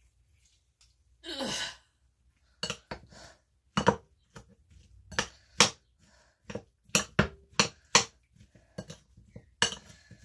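A fork clinks and scrapes against the side of a bowl while chopped tomatoes and onions are stirred for salsa, giving irregular sharp clicks about once or twice a second. A short breathy rush comes about a second and a half in.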